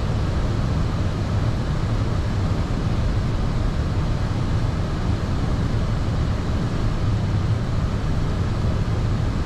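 Steady rushing noise of an Airbus A320 in flight, heard inside the flight deck: an even, mostly low hum of airflow and aircraft systems with no change in level.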